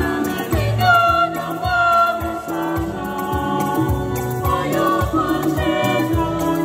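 A small mixed youth choir singing a gospel praise song in harmony, accompanied by a Yamaha PSR-SX700 arranger keyboard with pulsing bass notes underneath.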